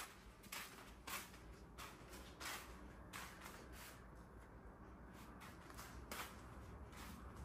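Faint footsteps of someone walking through a house, a soft step every half second to second, over a steady low hum.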